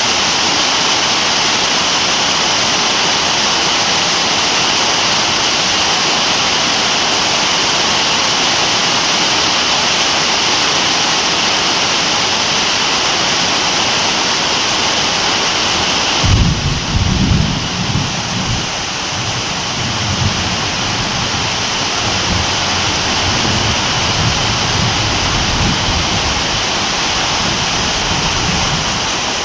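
Heavy rain falling in a steady hiss. A little past halfway the hiss thins and a low rolling rumble of thunder comes in, swelling and fading in waves.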